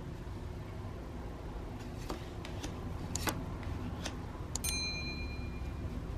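A few light clicks, then a single bright ding about four and a half seconds in that rings on for about a second, over a low steady room hum.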